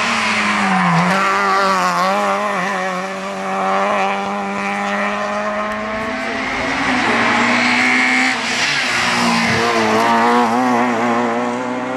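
Rally cars at full throttle on a tarmac hillclimb, engines revving hard and dropping back through gear changes, with a short tyre squeal past the middle.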